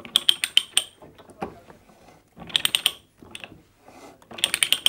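Ratchet pipe-threading stock and die clicking in three quick bursts about two seconds apart, its pawl ratcheting as the handle is swung back between cutting strokes. The die is being started on the end of a half-inch low carbon steel pipe, with the teeth being pushed to bite into the steel.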